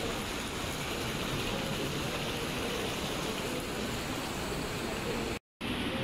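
Steady rushing ambience of an indoor spa pool hall, water and air moving without a break, cut by a brief gap of silence just before the end.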